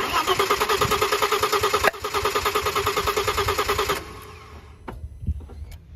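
Audi 2.7-litre twin-turbo V6 cranking on the starter without firing, a fast even beat of compression strokes for about four seconds with a brief hitch about two seconds in, then stopping. It is being turned over for a compression test on one cylinder, which reads just over 160 psi, within spec.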